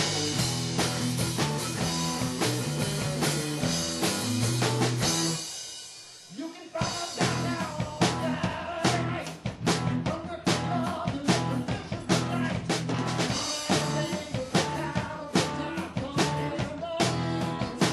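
Live rock band playing with two electric guitars and a drum kit. About five and a half seconds in the band drops out briefly, then comes back in with hard drum hits.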